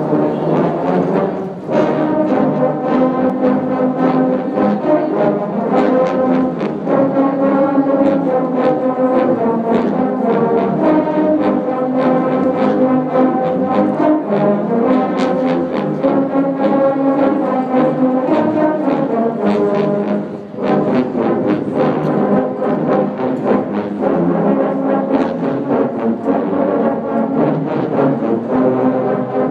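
A massed choir of hundreds of tubas, sousaphones and euphoniums playing a holiday song together, coming in right at the start. There is a brief pause about two-thirds of the way through.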